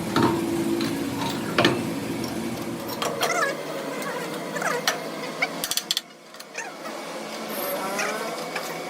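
Irregular mechanical clicking and ratcheting of hand tools on metal, with short squeaks, over a low hum that stops about three seconds in.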